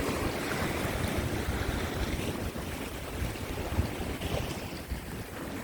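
Strong wind buffeting the microphone over rough surf washing against the sea rocks, a steady rushing noise with gusty low rumbles.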